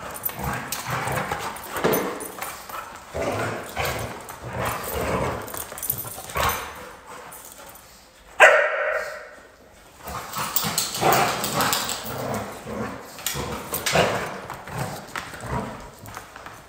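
Dogs barking at irregular intervals, with one loud bark that falls in pitch a little after the middle.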